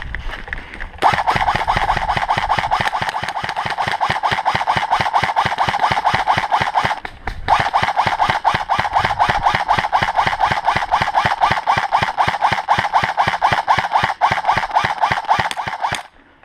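Airsoft electric rifle (M4-style AEG) firing on full auto in two long bursts, its gearbox cycling in a rapid, even rattle with a motor whine under it. The first burst starts about a second in and stops briefly about seven seconds in; the second runs until near the end.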